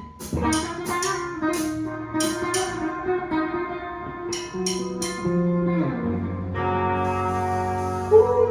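Guitar playing through a passage with bass notes underneath: a run of short picked notes, then a held chord near the end.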